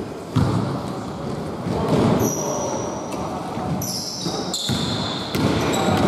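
Basketball being dribbled on a hardwood gym floor, a bounce every second or so, with short high sneaker squeaks from about two seconds in.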